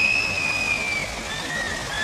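Water spilling over a low step in a fountain pool, a steady rushing splash. Over it, a long high held tone ends about a second in, and a slightly lower held tone starts just after the middle.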